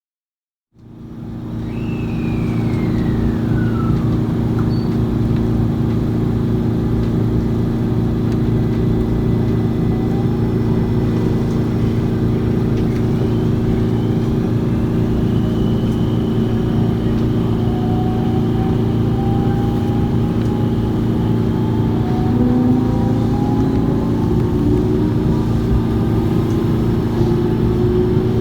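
Steady loud low drone of a JR West 225 series electric train's underfloor air compressor running, heard from inside the car, starting abruptly about a second in. Faint whines glide down once early on and rise in pitch through the second half.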